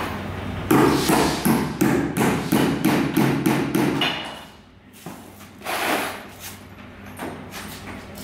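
Claw hammer nailing a timber brace onto a plywood formwork box, about three sharp blows a second for some three seconds, then stopping about halfway through, followed by softer knocks as the work is handled.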